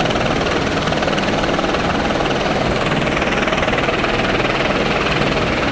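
Eurocopter AS350 Ecureuil turbine helicopter hovering overhead: a steady, loud, rapidly beating rotor and engine noise.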